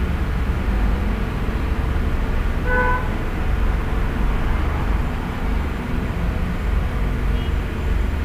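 Steady low background rumble with a faint hum, and a short pitched tone about three seconds in.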